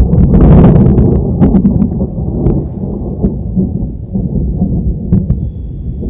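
Thunder: a loud low rumble with sharp crackles through the first couple of seconds, easing into a quieter rolling rumble.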